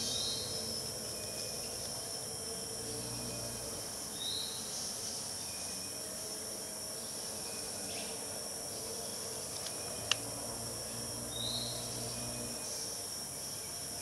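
Steady high-pitched drone of an insect chorus, with three short rising chirps spread through it and one sharp click about ten seconds in.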